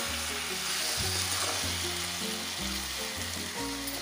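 Raw mango pieces and sugar sizzling in a non-stick pan as a wooden spatula stirs them, a steady hiss. Background music with low held notes plays along with it.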